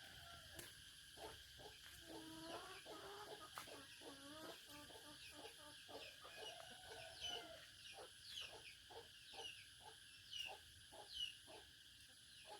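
Chickens clucking faintly, with a run of short high downward peeps about two a second in the second half.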